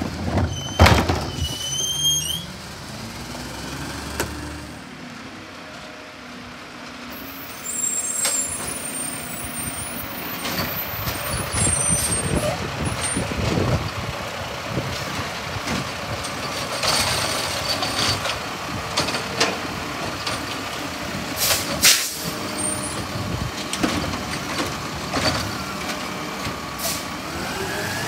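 Garbage trucks at work: a rear-loader's hopper taking a tipped cart with loud bangs, then a side-loader running, with repeated clanks and knocks as carts are emptied. Near the end the engine revs, its pitch rising.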